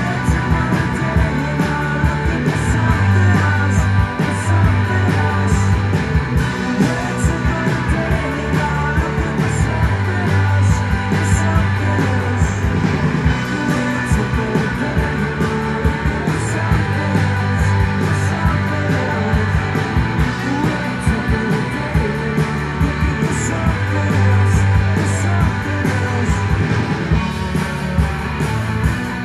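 Rock band playing live: electric guitars, bass guitar and drums, loud and continuous, with a pulsing bass line and cymbal hits.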